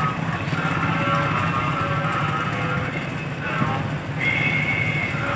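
Steady low rumble of a large passenger ship's engines running at the pier as it readies to depart, with indistinct voices and a short high tone over it.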